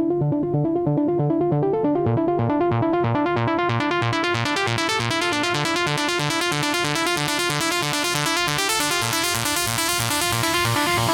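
Electronic trance music intro: a rapid repeating synthesizer arpeggio over a pulsing bass line, growing brighter as the filter opens over the first few seconds.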